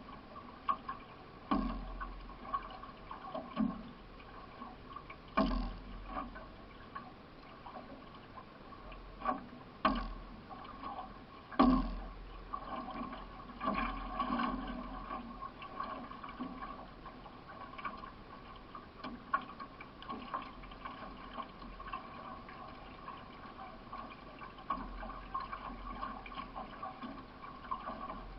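Paddle strokes and water splashing and trickling around a solo racing canoe under way, with a steady run of watery noise and occasional sharp knocks, the loudest about 12 seconds in.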